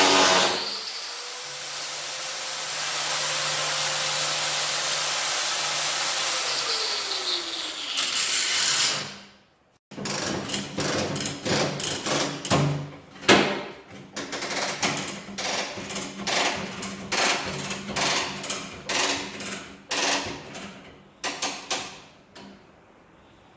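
A steady rushing tool noise for about nine seconds, with a faint tone that slides down near its end. After a sudden break comes a run of irregular hammer blows on the steel of a tractor loader bucket, worked to straighten the stretched metal.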